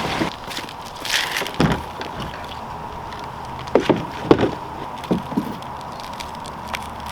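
A vehicle engine stops at the start, followed by a scattered series of sharp knocks and clunks, like gear being handled.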